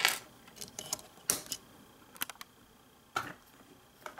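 LEGO plastic bricks and plates clicking as they are handled and pressed together: a handful of sharp, separate clicks about a second apart.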